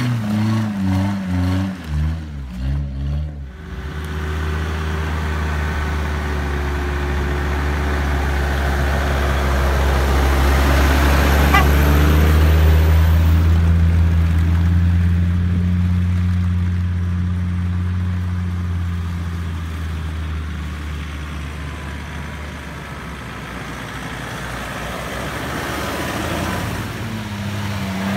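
Off-road 4x4 engine running at steady low revs, growing louder toward the middle and then easing off. It pulses unevenly for the first few seconds.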